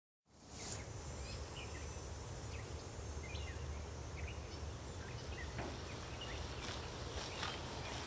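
Summer pasture ambience starting about a quarter second in: a steady high chirring of insects with a few short bird chirps and a low rumble underneath.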